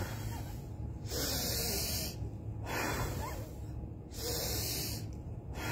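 A woman blowing out hard through her mouth at a tissue held in front of her lips, in a forced-exhalation breathing exercise: two long, hissing breaths, each about a second, some three seconds apart.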